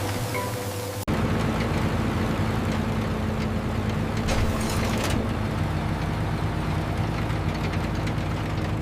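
Engine of heavy farm machinery running steadily with a low hum, cutting in abruptly about a second in.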